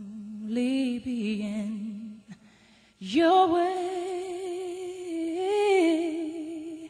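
A song's vocal: a singer sings a short phrase of long notes with vibrato, breaks off about two seconds in, then holds one long wavering note for nearly four seconds.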